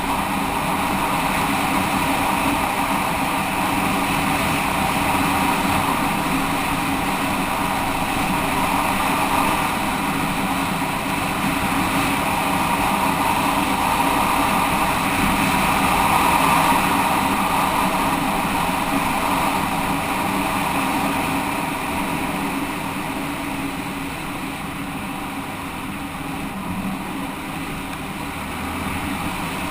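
Motorcycle engine running steadily while riding, with wind noise on the microphone; it gets a little quieter in the last third before picking up again.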